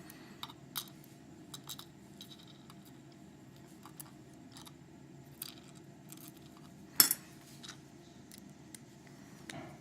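Scattered small metallic clicks and ticks of steel tweezers working tiny top pins out of a CX5 lock cylinder's pin chambers, with one sharper click about seven seconds in.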